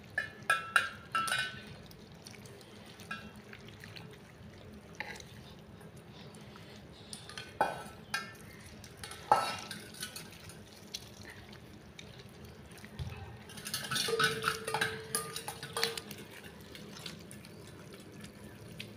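Scattered clinks and light knocks from a steel plate of fruit being handled, coming in short clusters near the start, around the middle and about three-quarters through.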